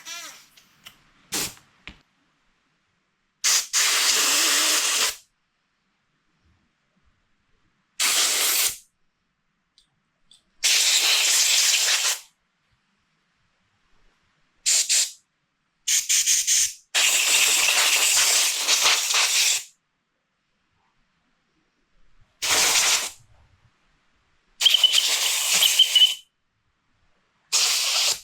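Compressed-air blow gun blasting through the carburettor body and passages of a KTM 250SX two-stroke during cleaning: about nine short bursts of hissing air with pauses between. One of the later blasts carries a thin whistle.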